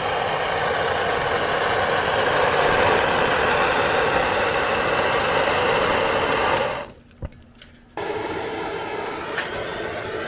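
A steady mechanical running noise, much like an engine idling, that cuts out abruptly about seven seconds in and comes back about a second later, somewhat quieter.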